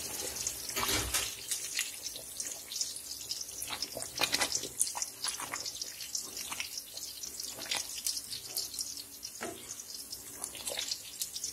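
Thick, steaming curry gravy being stirred with a wooden spoon in a pot: a run of irregular wet squelches and small pops from the sauce.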